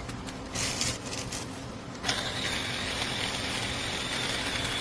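Small portable electric conical burr coffee grinder switching on about two seconds in and running steadily with a high whine and a hiss, grinding beans on its finest espresso setting. A short rustle of handling comes about a second in.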